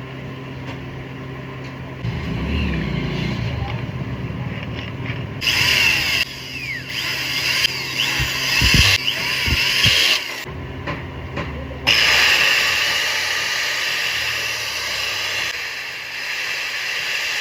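Electric '801' grinder running in bursts, its motor and gear noise stopping and starting several times with pitch changes, then running steadily near the end.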